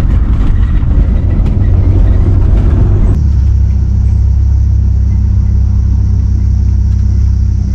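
Steady low rumble of the Ford Ranchero pickup on the move, engine and road noise heard from inside the moving vehicle. About three seconds in the sound changes abruptly: the higher hiss drops away and a steadier low drone remains.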